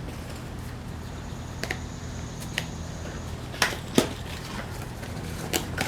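Scattered clicks and knocks of parts and packaging being handled while a new bike's box is unpacked, the loudest knock about four seconds in, over a steady low hum.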